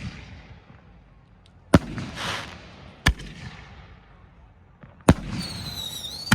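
A 25-shot firework cake firing: four sharp bangs about one to two seconds apart, with a short crackling hiss after one of them. Near the end a high whistle runs for about a second and ends in a bang.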